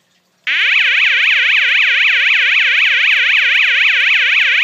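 Knock-off SpectrAlert-style fire alarm horn run on a 9-volt battery, switching on about half a second in and sounding a loud electronic yelp that sweeps quickly down and up, about four times a second.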